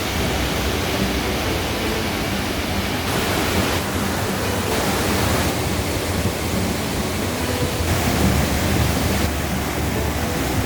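Waterfall with a steady, loud roar of rushing water.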